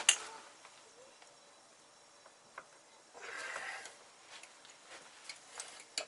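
Hand tools working on metal parts in a car's engine bay: a sharp click at the start, then faint scattered ticks and a short rustle about three seconds in.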